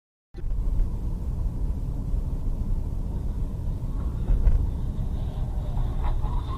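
Steady low road and engine rumble of a car driving at speed, heard from inside the cabin, after a split second of silence at the start.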